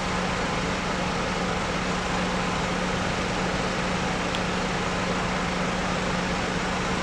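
Engine running steadily, a constant low hum over an even rush of noise.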